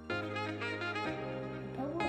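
Background music: a melody of held notes over a steady bass line, changing note about halfway through.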